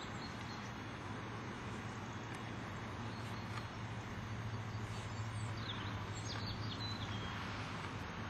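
Outdoor field ambience: a steady low hum and hiss, with a few short bird chirps about five to seven seconds in.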